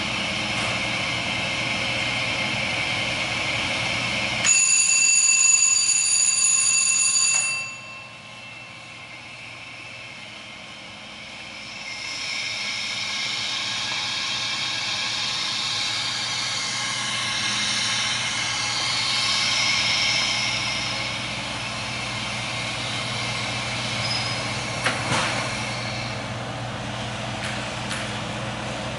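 Watkins-Johnson belt furnace running with a steady hum and hiss. About four seconds in, a loud, high-pitched alarm buzzer sounds for about three seconds and cuts off. After a quieter stretch, a hissing rush of air or gas flow rises and carries on.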